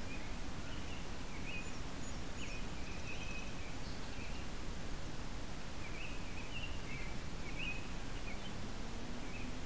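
Small birds chirping in short scattered calls over a steady low rumble of noise from the tiny keychain camera's microphone.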